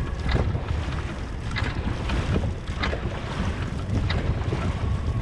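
Heavy wind buffeting the microphone during a dragon boat race, with sharp strokes on the water recurring at uneven intervals of under a second.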